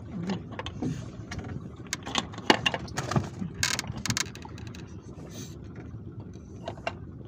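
Irregular clicks and knocks of handling on a wooden boat deck as a small caught fish is picked up from among strung shells, over a steady low background noise.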